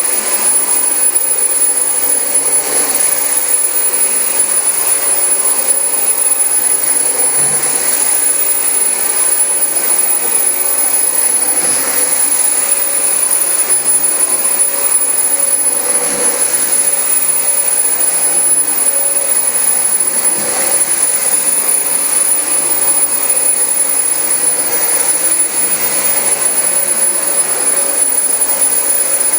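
Dyson DC25 upright vacuum cleaner running steadily on carpet, a continuous motor-and-airflow noise with a steady high whine.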